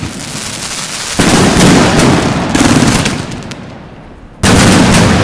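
Fireworks going off: sustained crackling sprays of sparks, with a fresh loud shot about a second in, another about two and a half seconds in, and a third near the end.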